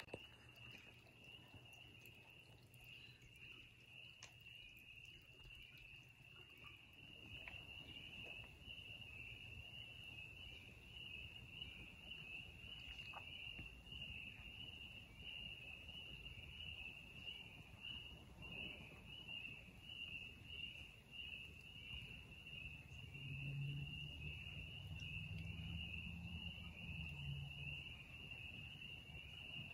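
Steady, high-pitched, pulsing chorus of insects in woodland. A faint low hum joins it about two-thirds of the way through.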